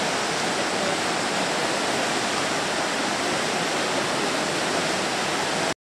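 The Verdon river rushing over rocky rapids, a steady, even wash of white water that cuts off suddenly near the end.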